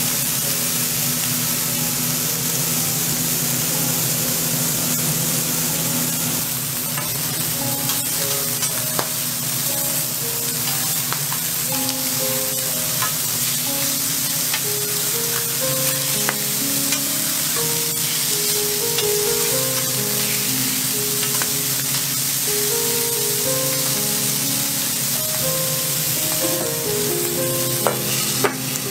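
Burger patties, eggs and bacon sizzling steadily on a flat-top griddle, with a few sharp clicks, under background music with a stepping melody.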